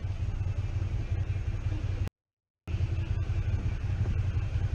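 Motorcycle engine idling with a low, pulsing rumble. The sound cuts out completely for about half a second just after two seconds in.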